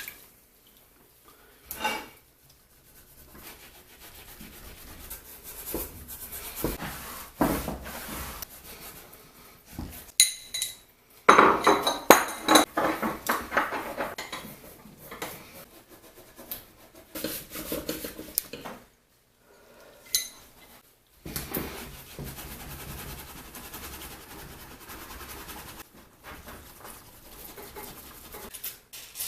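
Metal tool scraping and clinking against a vise jaw, in irregular strokes with scattered clicks, as a thick cake of caked grease and muck is scraped out.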